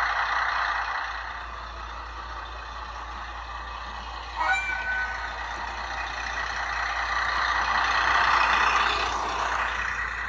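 Diesel railcar engine sound from a DCC sound decoder in an HO-scale Kiha 40 model, played through the model's small speaker as the railcar pulls away. The engine sound swells around eight seconds in and then eases off. A brief sharp sound comes about four and a half seconds in.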